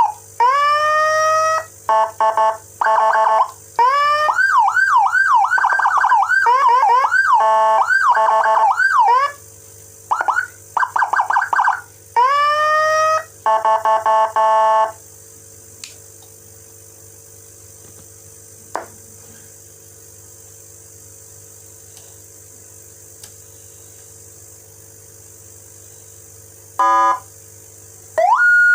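Electronic siren sounding a Whelen Euro Gama G2 tone set, switched from mode to mode. It gives quick rising sweeps, a fast warble, rapid switching between two tones and short blasts, with brief stops between them. After about fifteen seconds it goes quiet except for a short burst near the end, then a long high tone starts and slowly falls.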